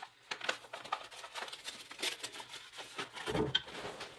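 Scattered small clicks, taps and rattles of hands handling screws and loose saw parts, with a dull knock about three seconds in.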